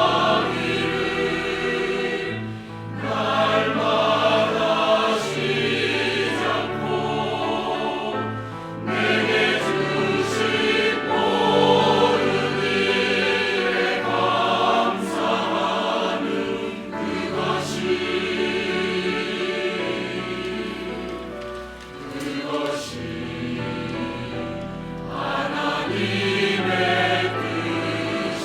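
Church choir singing a hymn-like anthem with instrumental accompaniment, in sustained phrases that ease off briefly at two points.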